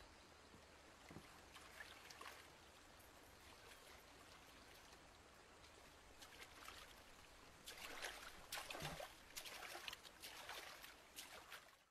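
A wooden paddle dipping and splashing in river water as a round woven coracle is paddled off. The sound is faint, with irregular strokes that come thicker and louder in the last few seconds.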